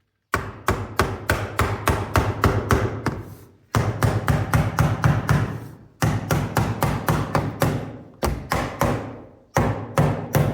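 Rapid hammer taps, about four a second in runs of a few seconds with short breaks, knocking the glazing beads (trim) into a double-glazed door frame to hold the glass.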